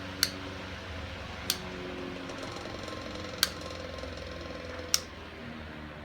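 1902 General Electric Pancake desk fan's early AC motor humming steadily while its five-speed switch is clicked through the speeds: four sharp clicks, the hum changing after each, and a little quieter after the last click about five seconds in.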